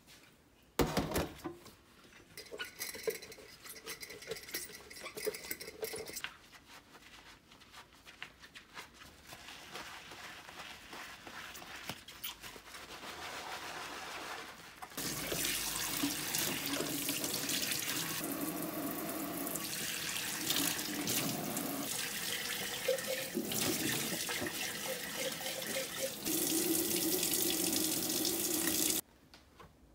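Glass jars being washed by hand in a stainless steel sink: light knocks of glass and sponge scrubbing in the first half, then the tap runs steadily from about halfway as the jars are rinsed, cutting off suddenly just before the end.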